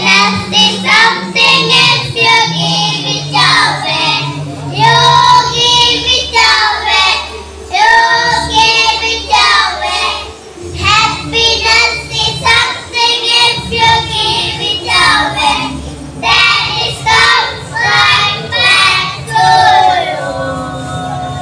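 A group of young boys singing an English song together into stage microphones, phrase after phrase with short breaths between.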